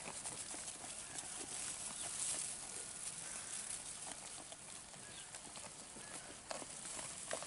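Cameroon sheep munching dry hay: irregular crunching and crackling of stalks as they pull and chew, with the hay rustling around their muzzles.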